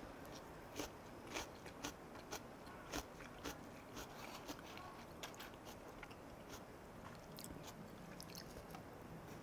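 Faint, close-miked chewing of jeon (Korean pancake) with onion, with irregular small crunches and mouth clicks, more frequent in the first half.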